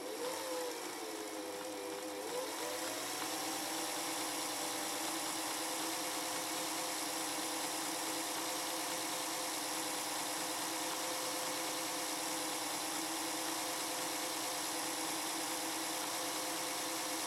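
Singer 401G Slant-O-Matic sewing machine running, its electric motor and gear drive turning the pattern cam stack. It spins up over the first two or three seconds, then holds a steady hum with a high whine.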